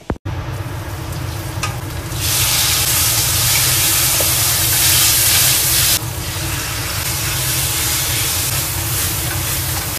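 Shiitake mushrooms and bok choy stir-frying in a hot oiled wok: a steady sizzle that grows much louder about two seconds in and drops back sharply at about six seconds, over a steady low hum.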